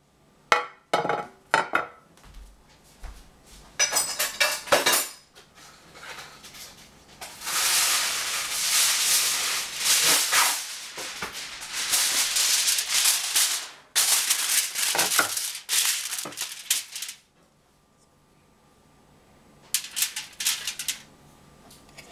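Aluminium foil being pulled off the roll, crumpled and pressed into a glass baking dish: a long stretch of dense crackling and crinkling. A few sharp clinks and knocks of the dish and utensils on the tiled counter come in the first seconds, and a few more near the end.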